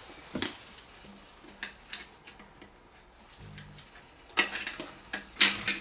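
Metal tools clinking and scraping on the rusted iron fitting of an old drain sump during repair. A few scattered clinks give way, in the last second and a half, to a busier run of scraping and clatter.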